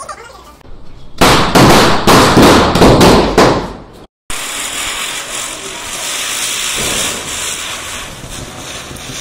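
Chakri (ground spinner firecracker) spinning on pavement, a loud, crackling hiss of spraying sparks for about two and a half seconds. It breaks off briefly, then goes on as a steadier, quieter hiss while it keeps spinning.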